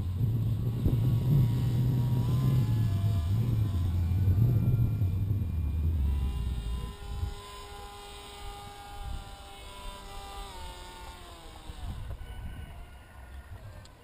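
Hacker electric motor and propeller of a radio-controlled model paramotor whining steadily in flight, the whine falling in pitch in steps about ten seconds in as it is throttled back for landing. A loud low rumble dominates the first six seconds or so.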